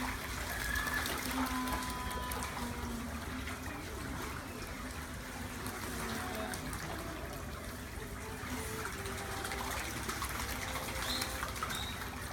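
Steady rush and trickle of water in the penguin pool, with faint voices mixed in.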